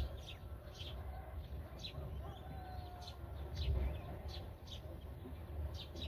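Black-winged kite chicks giving short, high-pitched begging cheeps, about one a second, while the parent feeds them in the nest, over a steady low rumble.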